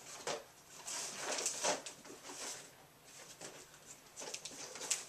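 Packaging rustling and crinkling as it is handled and opened, in irregular soft swishes with a few sharper crackles near the end.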